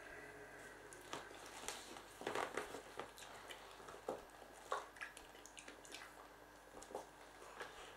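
Faint, scattered crinkles and squeaks from the plastic vinyl of an inflatable clownfish pool toy as it is handled and blown up by mouth.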